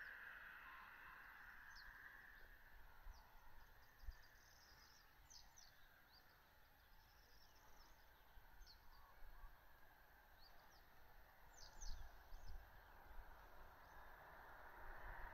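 Faint outdoor quiet with scattered high bird chirps, and a few low thumps about 4 and 12 seconds in.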